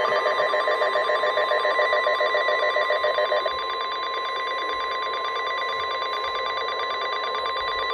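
NOAA Weather Radio's steady 1050 Hz warning alert tone, the signal that a warning such as this flash flood warning follows. A second, fast-warbling tone lower in pitch overlaps it for the first three and a half seconds, then drops out.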